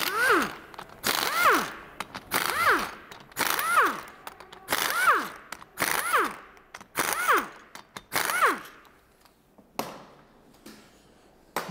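Pneumatic impact wrench undoing the main bearing cap bolts of a Kia Spectra S6D engine block. It fires in eight short blasts about a second apart, each ending in a falling whine as the air motor spins down. The blasts stop near the end, leaving quieter handling sounds.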